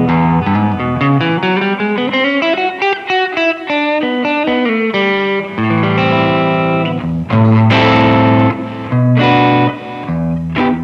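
1971 Gibson Les Paul Custom electric guitar played on its rhythm (neck) pickup through an amp. Held chords, a run of single notes that climbs and comes back down about two to four seconds in, then more ringing chords.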